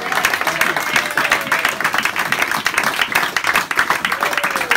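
Small crowd applauding, many hands clapping at once in a dense, rapid patter.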